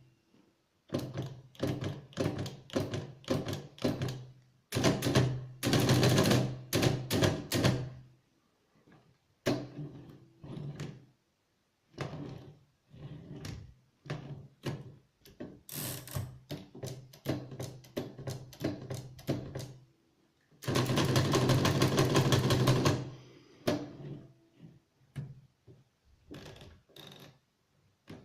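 Hammond No. 12 typewriter with the curved Ideal keyboard being typed on: a run of separate keystroke thunks, several a second, broken by short pauses, with two longer spells of dense clatter, one about five seconds in and one about twenty-one seconds in.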